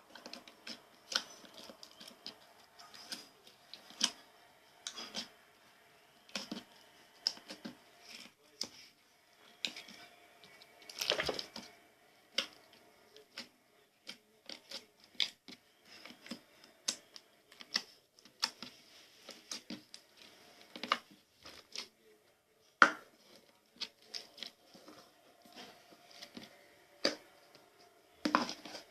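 Slime being squeezed and worked by hand, making many small irregular clicks and pops, with a longer crackling stretch about eleven seconds in.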